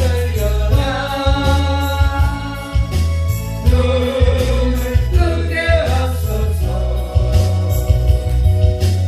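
Korean gospel song: a loud backing track with a heavy, steady bass beat under a melody line.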